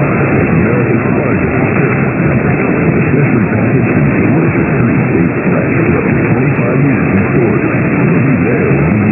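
Music playing on a radio broadcast, dense and continuous with no breaks.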